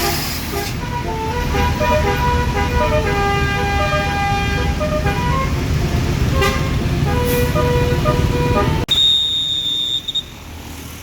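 A bus's basuri telolet air horn playing a melody, stepping quickly from note to note over a low rumble. It cuts off suddenly about nine seconds in, leaving a fainter steady high tone.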